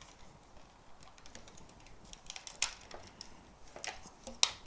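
Scattered light clicks and taps of a toy's box and parts being handled during unboxing, the sharpest about four and a half seconds in.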